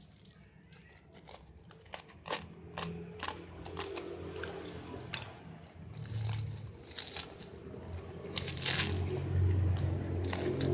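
Packaging being opened and handled: crinkling plastic, tearing and a run of sharp clicks and rustles, with a low hum growing louder near the end.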